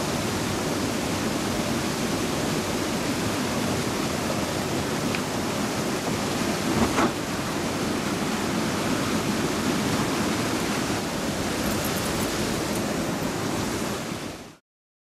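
Steady rush of a small waterfall pouring through a narrow rock chute, with a brief thump about seven seconds in as the canoe drops down the chute into the pool below. The sound cuts off suddenly near the end.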